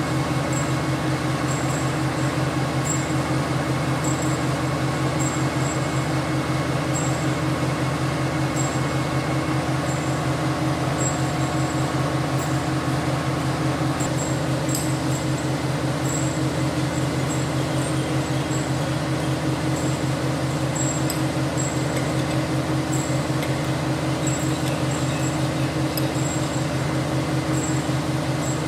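Horizontal metal-cutting band saw running: a steady machine hum with a fast, even low flutter. A faint higher tone within it stops about halfway through.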